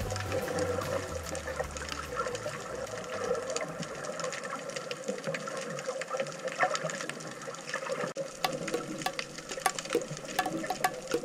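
Underwater sound through an action camera's waterproof housing: a muffled wash of seawater with many scattered sharp clicks and crackles.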